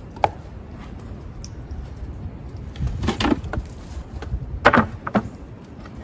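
Knocks and clunks of garden debris being handled: one knock near the start, a cluster of clunks about three seconds in, and two sharper knocks near the end, over a steady low rumble.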